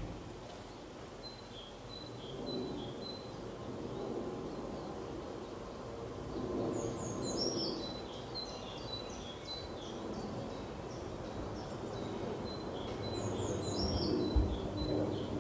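Outdoor ambience of small birds chirping and singing, one song phrase heard twice about six seconds apart, over a steady low rumble of background noise. A brief low thump comes near the end.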